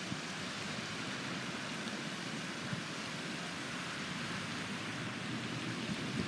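Steady outdoor background noise, an even hiss with no distinct calls or clicks.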